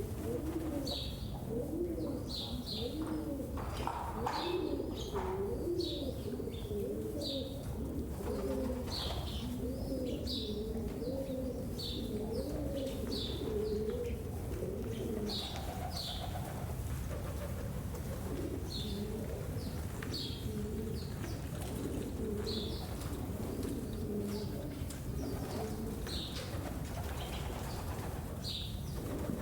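A flock of pigeons cooing, many low warbling coos overlapping without a break. Short high chirps from other birds come about once a second over the top.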